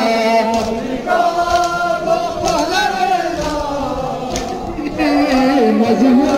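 A crowd of men's voices chanting a mourning lament together, holding long notes that rise and fall.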